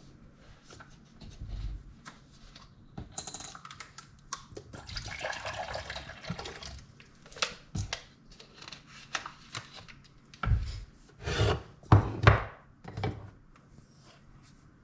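Assorted handling noises: rubbing and clicks, a rushing noise lasting about two seconds midway, then several dull thumps.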